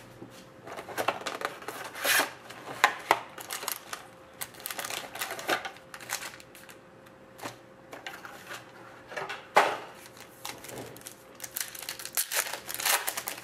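Hockey card box and its wrapped packs being opened and handled: irregular crinkles, rustles and clicks of wrapper, cardboard and cards, with a few sharper snaps.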